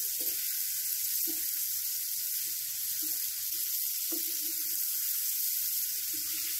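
Chicken tikka pieces with tomatoes and chillies frying on a hot tawa (flat griddle), a steady sizzle.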